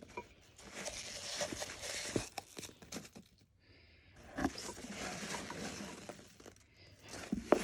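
Paper packaging rustling and crinkling as a mug is unwrapped, with a few light knocks, going quiet for about a second midway.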